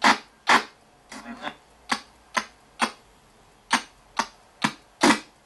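RTC ghost box sweeping through radio frequencies: short chopped bursts of radio static and broadcast fragments, about two a second, with a brief garbled voice fragment about a second in.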